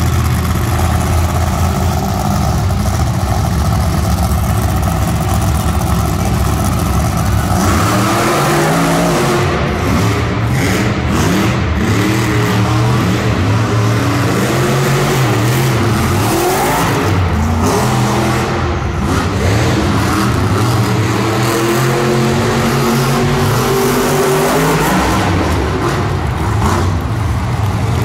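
Monster truck engines in an indoor arena: a steady engine drone for the first several seconds, then hard revving with the pitch repeatedly rising and falling.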